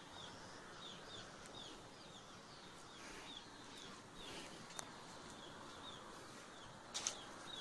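A bird's faint, short chirps repeating about three times a second over quiet outdoor background noise, with a couple of faint clicks near the end.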